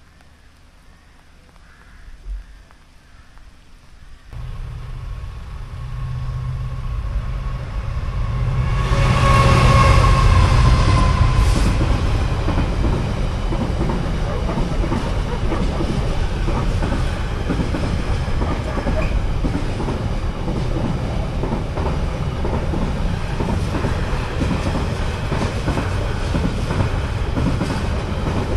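Container freight train passing over a level crossing: the locomotive comes in suddenly about four seconds in with a low engine hum, is loudest as it passes a few seconds later, then the container wagons roll by with a steady rumble and wheel clatter.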